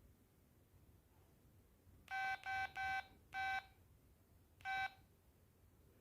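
Keypad beeps from an LG MD5330 mobile phone as its buttons are pressed: five short beeps, all on the same pitch. Three come in quick succession about two seconds in, a fourth follows just after, and a fifth comes more than a second later.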